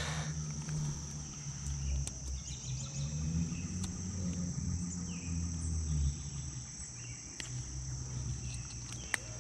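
Steady, high-pitched chorus of insects trilling without a break, over a low uneven rumble and a few faint clicks.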